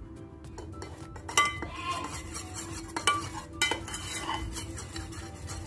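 Metal spoon stirring a thin liquid mixture in a small stainless-steel saucepan, scraping round the sides with a few sharper ringing clinks against the metal.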